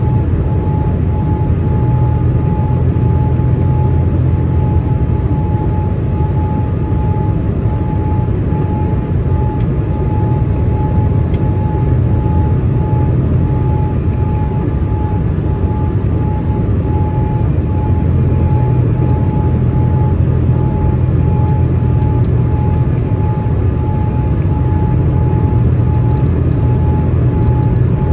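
Airliner cabin noise in flight: a steady low rumble of the engines and rushing air, with a thin steady whine running through it.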